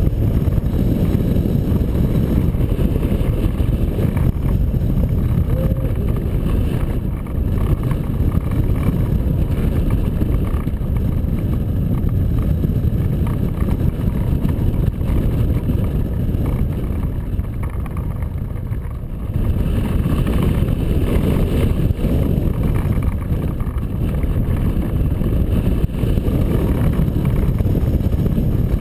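Wind rushing over the microphone of a camera mounted on a hang glider in flight: a loud, steady low rumble of airflow. It eases briefly about two-thirds of the way through, then picks up again.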